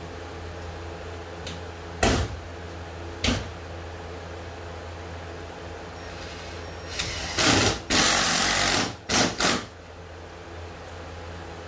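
Cordless drill driving screws into a canoe gunwale: two short blips of the motor, then a run of longer stop-and-start bursts in the second half. A steady hum runs underneath.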